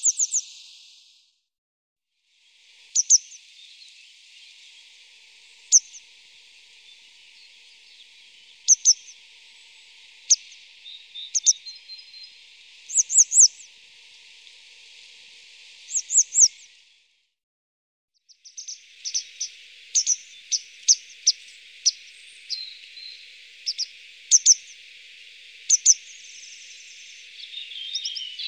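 Wild birds chirping in short, sharp high notes over a steady high hiss, the chirps growing more frequent in the last third; the sound cuts out briefly twice.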